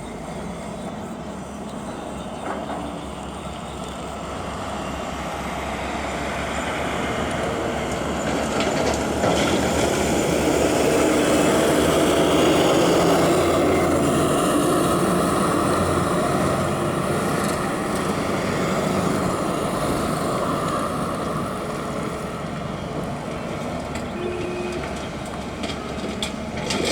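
Diesel engine of a backhoe loader working while it loads a dump truck, growing louder to a peak about halfway through and then easing off.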